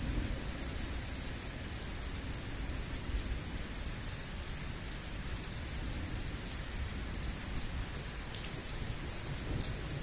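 Heavy rain falling steadily during a thunderstorm, with many sharp drop ticks close to the microphone and a low rumble underneath.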